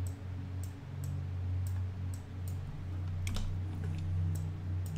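Light clicking of a computer mouse and keyboard, about ten irregular clicks, over a steady low hum.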